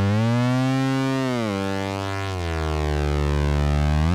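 A held analog synthesizer note, played from the AXE ribbon controller, bent up in pitch and back down by pressing the pitch-bend-up pressure point. About two seconds in it is bent down by the pitch-bend-down pressure point and glides back up near the end.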